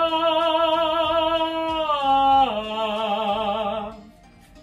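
A man singing a chest-voice vocal exercise: a held note with vibrato that steps down to a lower note about two and a half seconds in and stops shortly before four seconds.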